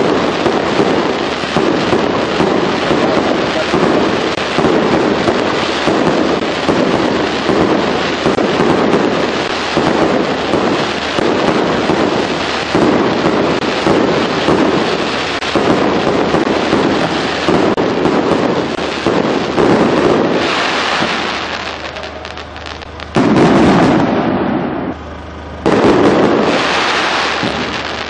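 Fireworks display: a dense, continuous barrage of bangs and crackling that thins out after about twenty seconds, followed by two loud blasts near the end.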